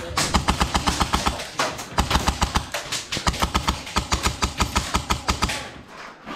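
Airsoft rifle gunfire: several rapid strings of sharp shots, about seven or eight a second, dying away a little before the end.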